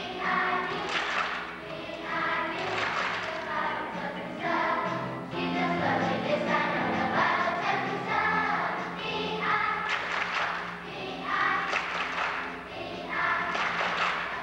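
Large children's choir singing together over an instrumental backing track with keyboard and drums.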